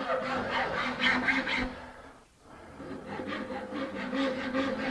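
A flat file rasping across the end of a wooden dowel in repeated quick strokes, shaping a round tenon. The strokes pause briefly around the middle and then resume.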